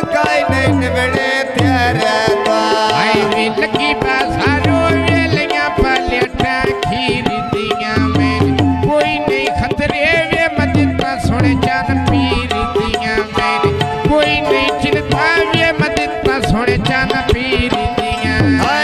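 Punjabi folk music: a hand drum beats a steady rhythm under a wavering melody line.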